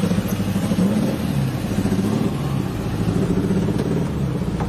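Air-cooled flat-four engine of an old split-window Volkswagen bus being revved with the accelerator pedal, its pitch rising and falling a couple of times.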